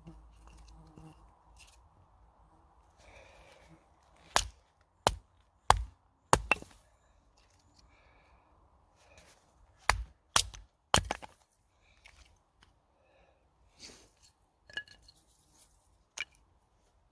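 A series of sharp cracks and knocks, about ten in all, coming in two quick clusters with a few fainter ones after.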